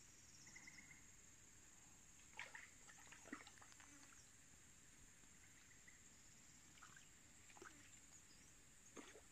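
Near silence: a faint, steady high-pitched insect drone, with a few short chirps and brief falling calls scattered through it.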